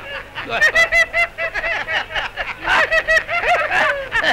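A group of men laughing in two bouts of pulsing ha-ha laughter, the first about half a second in and the second near three seconds.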